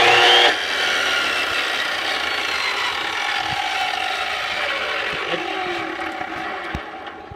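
Electric chop saw motor whining at full speed, then about half a second in dropping in level and winding down, its pitch slowly falling as it fades out near the end.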